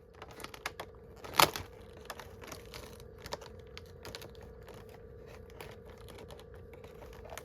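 Faint clicks, crinkles and tearing of cardboard and paper packaging being handled and opened by hand, with one sharper snap about a second and a half in. A faint steady hum runs underneath.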